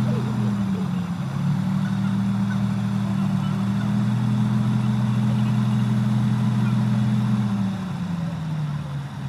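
Diesel engines of a combine harvester and tractor running at steady high revs while harvesting wheat, a loud even drone. Near the end it eases off, getting quieter and lower in pitch.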